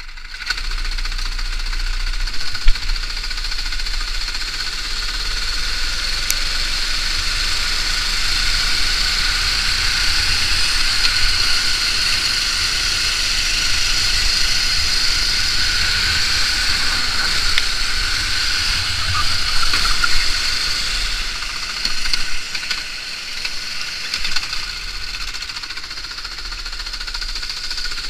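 Onboard sound of a Sodi rental go-kart's small engine running hard at racing speed, a steady high drone. It drops a little for a few seconds near the end, with a few sharp knocks.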